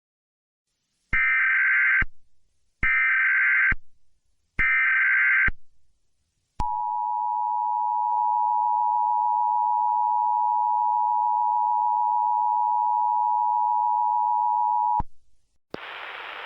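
Emergency Alert System tones: three one-second bursts of the screechy SAME header data, then the steady two-tone EAS attention signal for about eight seconds, announcing an emergency alert. The tone cuts off with a click, and a hiss of static starts near the end.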